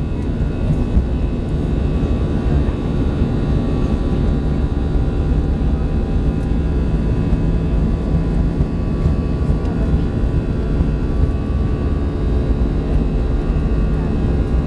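Airbus A320 jet airliner on its takeoff roll, heard from inside the cabin: the engines run at takeoff power with a loud, steady low rumble and several steady whining tones above it, while the wheels rumble on the runway.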